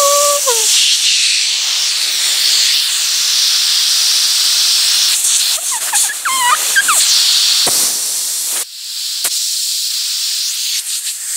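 Compressed air hissing loudly out of a homemade spool valve, a ground 12 mm steel rod sliding in a drilled cast iron body, as the rod is pushed back and forth. The air never shuts off because the rod fits the bore too loosely and the valve leaks. Short whistling squeaks sound at the very start and again around the middle, and the hiss drops in level about two-thirds of the way through.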